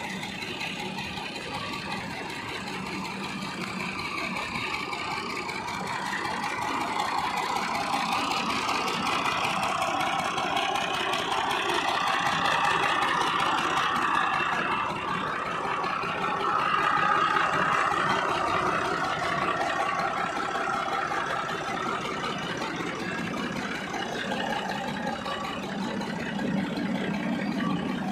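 Tractor engine running steadily, driving a canal water pump through its PTO shaft. It grows louder for a while in the middle, then eases back.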